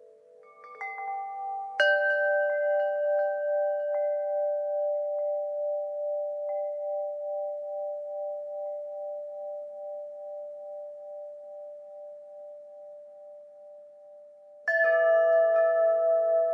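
Wind chimes struck in a cluster about two seconds in, their clear tones ringing on with a slow waver and fading gradually over the next twelve seconds. Another loud cluster of strikes comes near the end.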